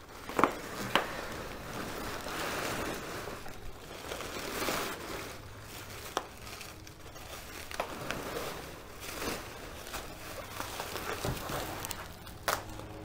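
Paper packing (shredded kraft paper and newspaper) rustling and crinkling as it is pulled out of a cardboard box by hand, with a few sharp crackles. Near the end a bubble-wrapped bundle rustles as it is lifted out.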